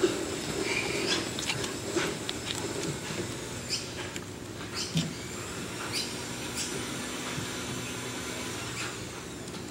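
Scattered light taps and knocks as a toddler moves about inside a plastic playhouse, with faint rustling between them.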